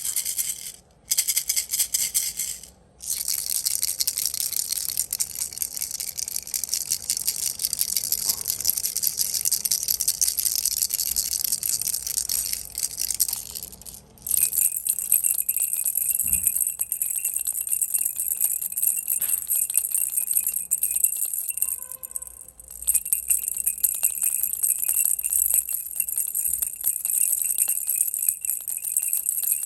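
Baby's toy rattle being shaken continuously, a dense, bright rattling with a few brief pauses. After a pause about halfway through, the rattling turns brighter and more jingly.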